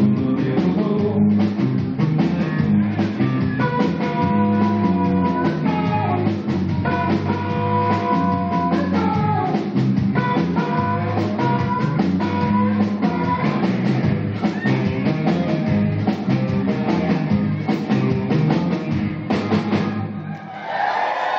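Live rock band playing electric guitars over a drum kit, steady and full throughout; the music stops near the end.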